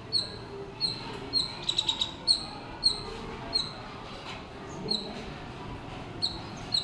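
Squirrel giving a series of short, high chirps, about one every half to three-quarters of a second, with a quick rapid run of chirps around two seconds in.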